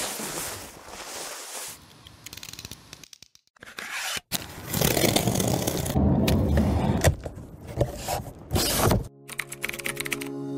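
A utility knife slicing through packing tape on a cardboard box: scraping and tearing with a few sharp clicks. Soft background music starts near the end.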